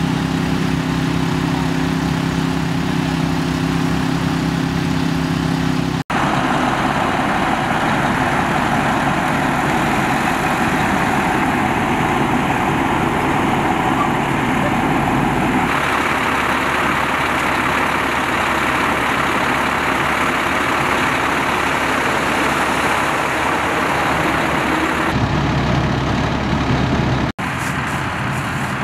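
Engines running steadily: the small gasoline engine of a Holmatro hydraulic rescue-tool power unit and the engines of idling emergency vehicles. The sound changes abruptly a few times.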